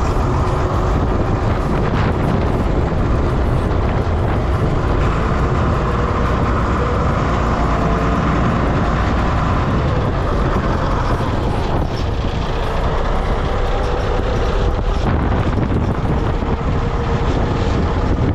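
Steady running noise of a motor vehicle, with wind buffeting the microphone.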